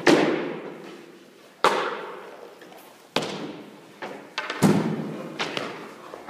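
Hockey pucks fired at a goalie one after another, each a sharp crack followed by a long echo in the rink. Four main hits come about a second and a half apart, with a couple of lighter knocks between them.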